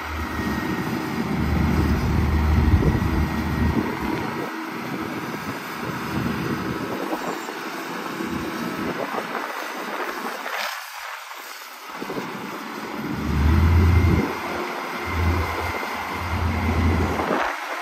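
Diesel engine of a wheel loader working a stockpile. It revs up under load twice, about ten seconds apart, as the bucket digs in and lifts, and runs lower in between.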